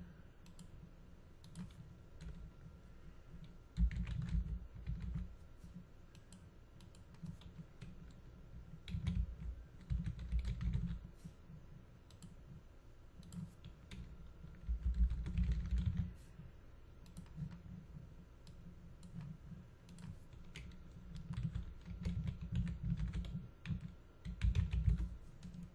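Typing on a computer keyboard: irregular bursts of keystrokes with short pauses between, entering words. Dull low thuds come in clusters among the keystrokes and are the loudest parts.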